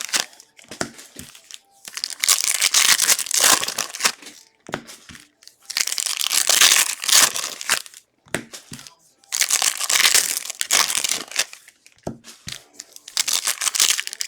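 Plastic wrappers of trading card packs crinkling and tearing as the packs are opened, in four or five bursts of a couple of seconds each with short pauses between.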